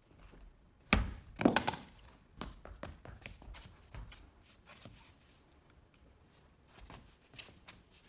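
Knocks and thuds from a person moving about in a bulky mascot costume: a sharp thunk about a second in, a cluster of louder knocks just after, then scattered lighter taps and steps.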